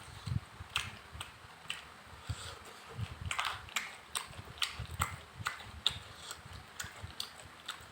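Close-up mouth sounds of someone chewing a meal of rice and fish: wet smacks and clicks, about two a second, over soft low thumps.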